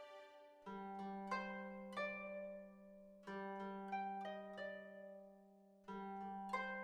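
Soft background music of plucked string notes. They come in small clusters, each note ringing and fading, over a held low note.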